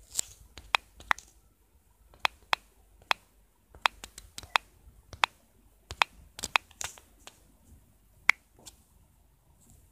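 An irregular series of sharp clicks or taps, about twenty of them, some coming in quick pairs, over a quiet room.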